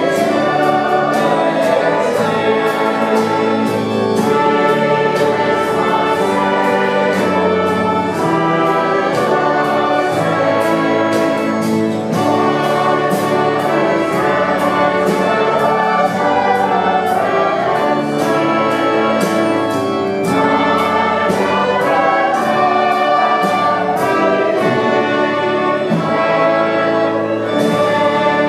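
A hymn sung by many voices, accompanied by a brass ensemble of trumpets, trombone and French horn. The music is loud and continuous.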